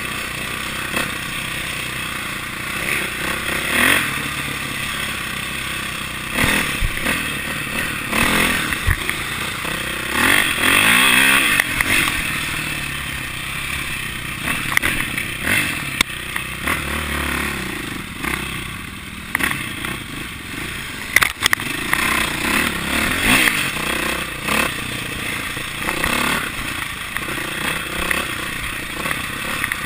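KTM 450 dirt bike's four-stroke single-cylinder engine under way, revving up and down as it is ridden over rough ground, with knocks and rattles from the bike over bumps; one sharp knock stands out about two-thirds of the way through.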